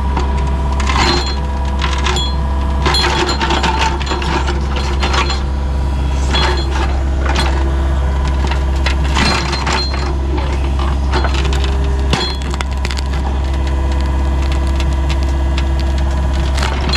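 Wood cracking and snapping in a string of sharp breaks as a chunk of old wood is pried and pulled up, over a steady engine hum.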